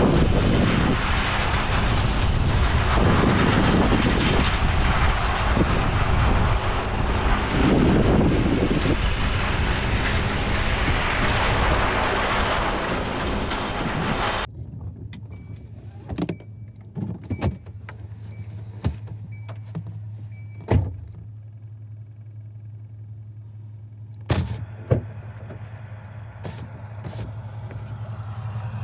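Loud, gusty rushing noise of a vehicle on the move, which cuts off suddenly about halfway. After it comes a low steady hum with scattered sharp clicks and a faint beep repeating about twice a second for a few seconds.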